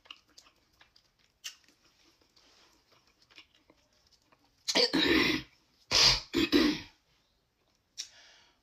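A woman coughing in a harsh fit, set off by the very hot seasoning of the seafood boil she is eating. Faint mouth smacking comes first, then a cluster of loud coughs about five seconds in, and one short cough near the end.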